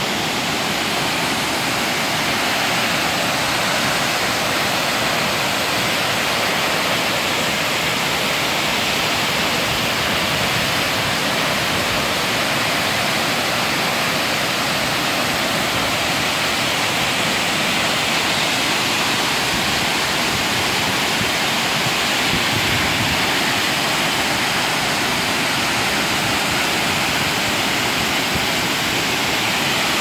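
Tortum Waterfall's water falling, a loud, steady rushing that does not let up.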